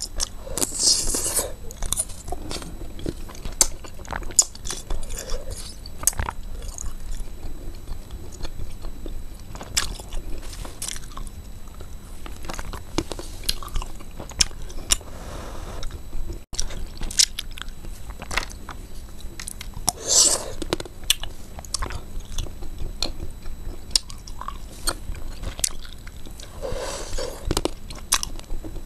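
Close-miked biting and chewing of frozen sugar-ice sticks: irregular sharp, brittle cracks and crunches, with a few denser bursts of crunching.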